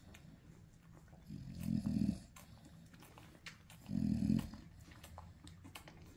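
Nano American bully dogs, a mother with her nursing puppies: two low, rumbling grunts about two and a half seconds apart, with faint clicks between them.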